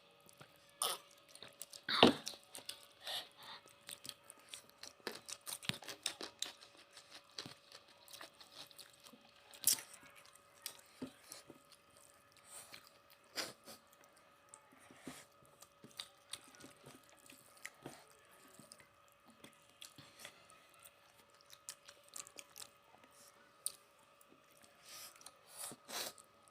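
People eating a rice and curry meal: chewing and crunching with scattered sharp clicks, the loudest about two seconds in, over a faint steady hum.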